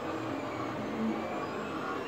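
FDM 3D printer running mid-print: the steady whir of its cooling fans, with faint high whining tones from the stepper motors that drift slowly in pitch.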